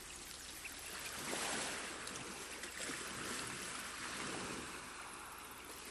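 Sea surf washing in: a steady rush of waves that swells and eases.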